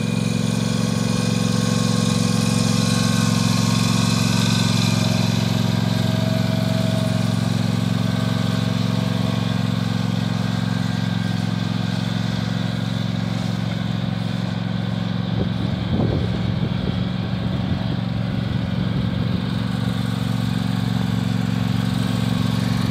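Husqvarna riding lawn mower's engine running steadily at one even speed as it is driven slowly across grass, with a brief clatter about two-thirds of the way through.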